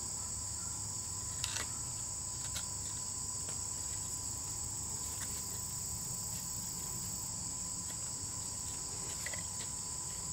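A steady, high-pitched drone of insects, with a few faint light ticks as braided bank line is handled and worked through a lashing loop.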